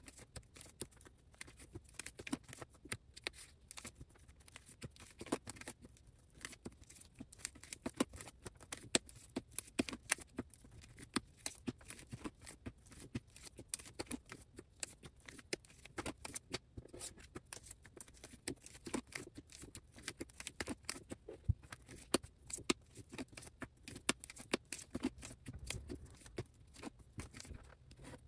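Sleeved photocards being slid out of plastic binder pockets and set down in stacks on a table: a steady, irregular run of light plastic clicks, taps and rustles.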